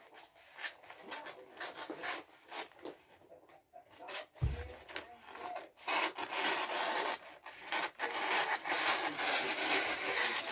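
Scissors cutting through wrapping paper, with the paper rustling: short snips and crinkles at first, then a long stretch of steady cutting from about six seconds in. A brief low thump about four seconds in.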